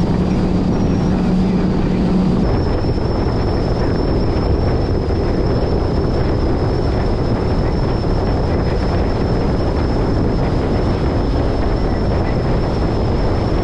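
Small motorboat running at speed across open water: a steady engine drone mixed with wind buffeting the microphone and water rushing past the hull. A low hum within the engine noise drops away about two seconds in.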